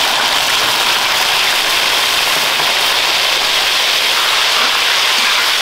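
Loud, steady sizzling of chopped pork and beef innards frying in hot oil in a wok, just tipped in on top of garlic, onion and chili.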